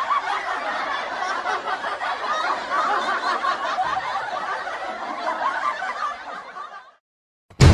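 Laughing and snickering, fading out about seven seconds in. A loud music clip starts right at the end.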